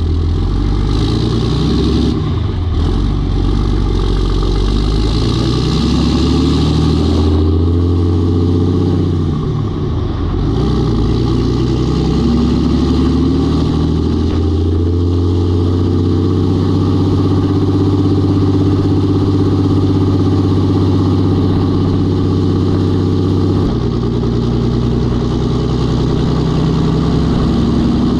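6.7 Cummins inline-six turbodiesel running, its engine note rising and falling in pitch several times, holding steady for a long stretch and dropping suddenly near the end.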